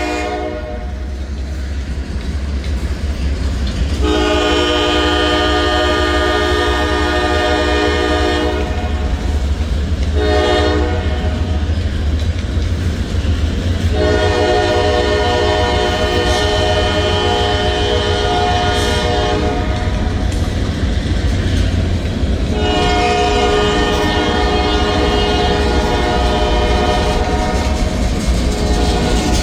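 Freight train cars rolling past with a steady low rumble and wheel clatter. Over it, a locomotive air horn sounds in separate blasts: a long one about four seconds in, a short one a few seconds later, then two long blasts, the last running on to the end.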